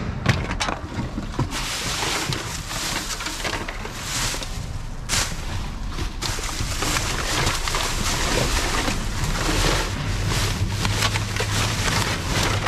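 Plastic rubbish bags rustling and crinkling, with scattered knocks and clatters, as a dumpster's rubbish is rummaged through for cans. A low steady hum comes in about ten seconds in.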